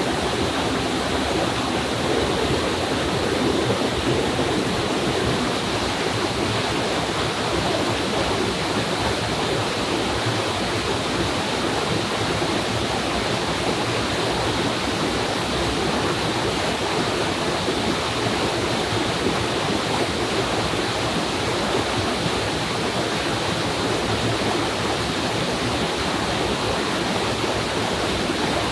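Small waterfall pouring into a rocky stream pool: a steady rush of falling and splashing water.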